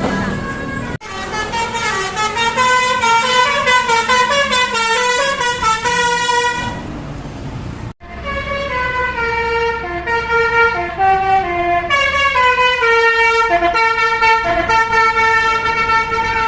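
Basuri 'telolet' bus horn with five roof-mounted trumpets playing loud melodic tunes of quick stepping notes. The sound breaks off abruptly about a second in and again near eight seconds, and a new run of notes starts each time.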